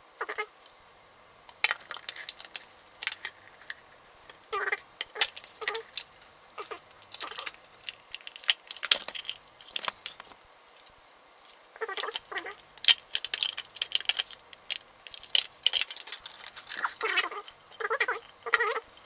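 Hard black plastic parts of a Henry Micro vacuum cleaner's base clicking, knocking and scraping as they are handled and fitted together, in an irregular scatter of sharp clicks and short rattles.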